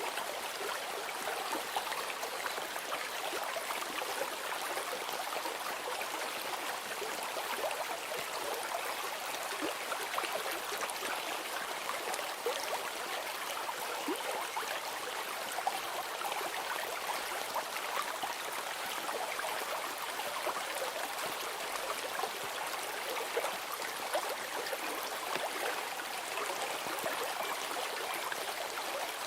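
Flowing stream water, a steady, even babble with no change throughout.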